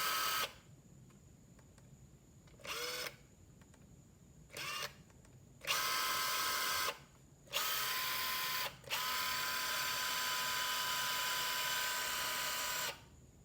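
Makita XDT15 cordless brushless impact driver's motor spinning freely with no load, triggered in bursts. There are two brief blips, then three longer runs, the last about four seconds, each a steady whine. The owner finds it weak-sounding and puts that down to a low battery.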